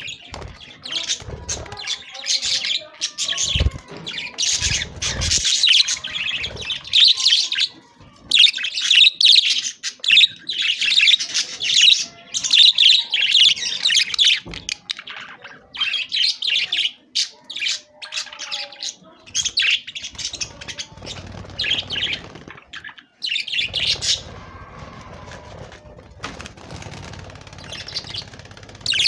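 A group of budgerigars chirping and chattering, in busy bursts with short pauses, with a few wing flutters and thuds in the first seconds.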